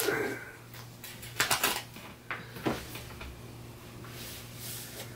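Paper handling: pages of booklets being turned and shuffled, a few short rustles and light knocks, over a low steady hum.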